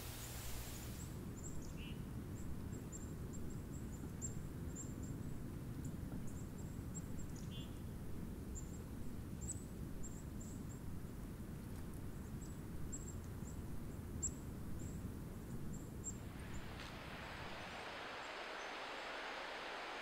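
Outdoor ambience with a steady low rumble, over which faint, very high, thin bird chirps come every second or so, and twice a short nasal call of a white-breasted nuthatch. Near the end the rumble gives way to a steady higher hiss.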